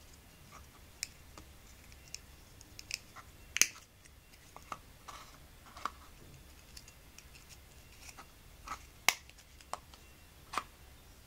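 Irregular sharp clicks and snips of close handwork: thread snips and a small snap-fastened leather case being handled. The two loudest clicks come about three and a half and nine seconds in.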